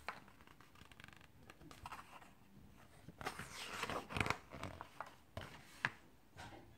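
Page of a hardcover picture book being turned by hand: paper rustling and sliding, loudest a little past the middle, with a few sharp taps as the page is handled and settles.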